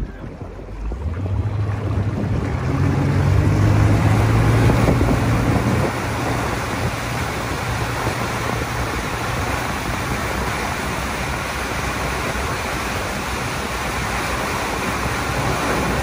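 Inboard engine of a 2008 Malibu VLX wake boat coming up on the throttle, its drone rising over the first few seconds, then a steady rush of churning wake water and wind at the stern as the boat runs at speed.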